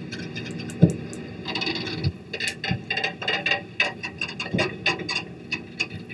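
Irregular clicks and knocks over a rustling hiss and a low rumble, with a sharp knock about a second in and another near the middle.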